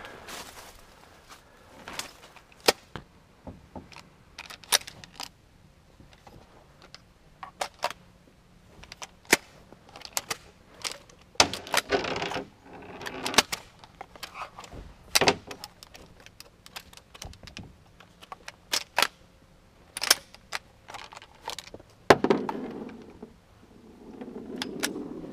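Irregular sharp clicks, clanks and knocks of gear being moved about in a metal jon boat, a few of them loud, with short bursts of rustling about halfway through and near the end.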